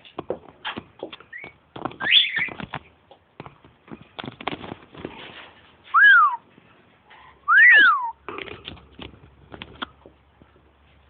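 Pet lory whistling: a short chirp, then two loud whistles near the middle, each rising then falling, against light clicking and tapping.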